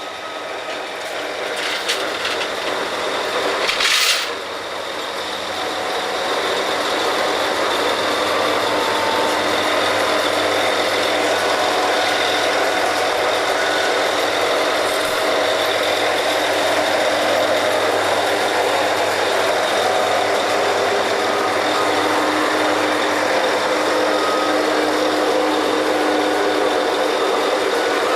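Drilling rig machinery running under load as drilling resumes after a pipe connection: a steady mechanical din of engines and drive with several held tones, building up over the first few seconds. A short loud hiss about four seconds in.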